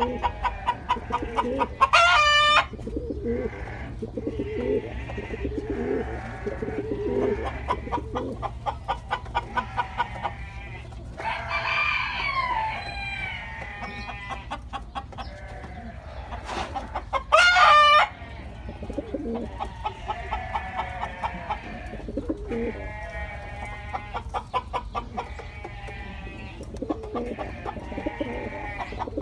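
Fancy pigeons cooing in a loft, among a steady stream of rapid short bird notes. Two short, loud, high calls from another bird stand out about 2 seconds in and again near 17 seconds.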